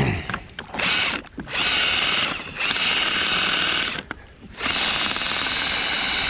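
Ryobi power drill driving a paddle attachment as a kayak propeller: the motor runs in a few short start-stop bursts, pauses briefly, then runs steadily from about three-quarters of the way in.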